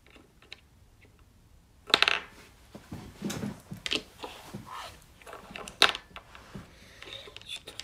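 Small bear figurines clacking against a hard tabletop as they are set down and pushed upright, a string of sharp clicks and knocks starting about two seconds in, the loudest one near six seconds.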